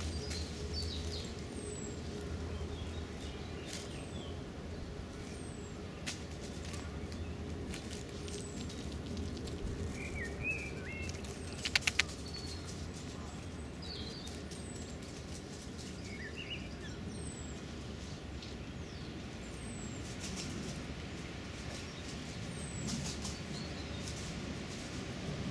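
Outdoor park ambience: a steady low background rumble with small birds chirping now and then. About twelve seconds in, a quick run of sharp clicks comes as a magpie pecks at the peanuts close by.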